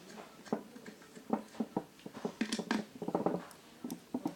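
Irregular light metallic clicks and taps of nuts being fitted loosely onto an electric fan's housing during reassembly.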